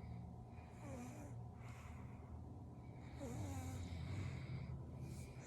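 A 7-month-old baby snoring in his sleep: a low, buzzing snore, with a noisier breath about every two seconds.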